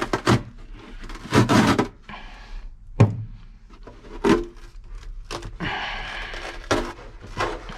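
Glued-in floor carpet in a car interior being pulled and peeled loose from the floor pan: stretches of rough tearing and scraping, broken by a run of knocks and thumps, with one sharp thunk about three seconds in.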